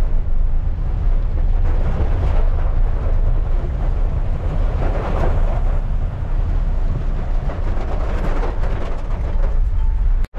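Vehicle cabin noise while driving in heavy rain: a steady low road and engine rumble under the hiss of rain and wet tyres, which swells now and then. The sound cuts out for a moment near the end.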